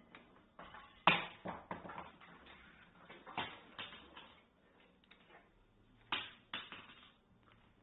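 A small thrown toy knocking and bouncing on a hard surface: a sharp knock about a second in followed by smaller bounces, then more knocks near the middle and about six seconds in.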